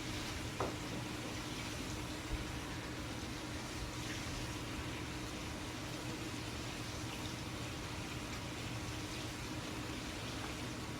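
Wooden-bladed Grayton ceiling fan coasting down just after being switched off from high speed: a steady airy whoosh with a faint steady hum. There are two light clicks in the first few seconds.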